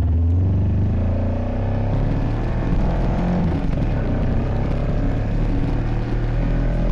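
Kawasaki Versys motorcycle engine running under way, a steady low drone whose pitch shifts a little as the throttle changes.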